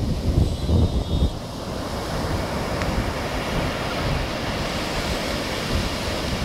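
Surf breaking and washing up a sandy beach in a steady rush, with wind buffeting the microphone in heavy low gusts during the first second or so.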